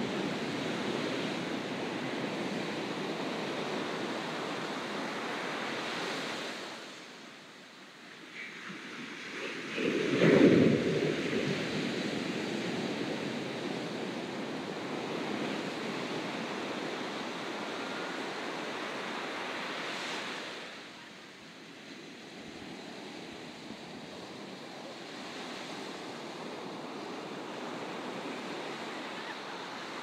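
Sea waves breaking and washing up a beach: a steady rush of surf that eases into a lull twice, with one wave crashing loudest about ten seconds in.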